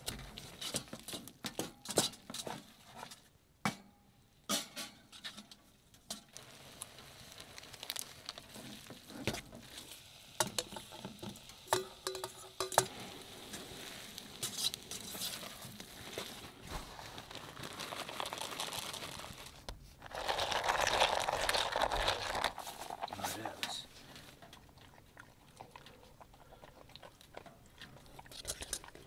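Utensil clicking and scraping against a metal cooking pot as noodles are stirred, with a louder rush of noise for about three seconds past the middle.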